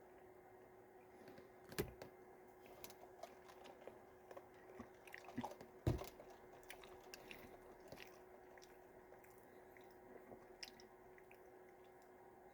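Faint chewing and crunching as a person eats a hard McDonald's baked apple pie, with small clicks throughout and two louder knocks about two and six seconds in.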